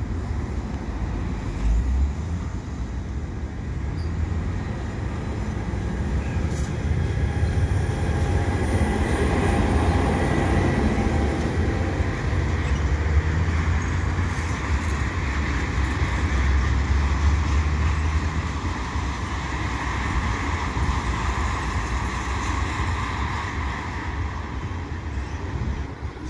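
Freight train of tank cars rolling past, a steady rumble of steel wheels on the rails with a faint high wheel squeal through the middle. At first a bilevel commuter coach also runs by close in front.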